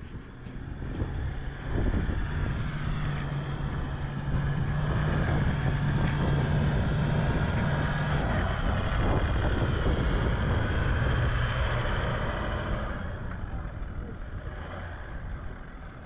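Four-wheel drive towing a camper trailer across beach sand, its engine running steadily under load. It grows louder about two seconds in as the vehicle draws near and passes, then fades near the end.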